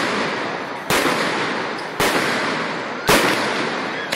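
Aerial fireworks bursting overhead: three sharp bangs about a second apart, each followed by a long fading rumble of echo.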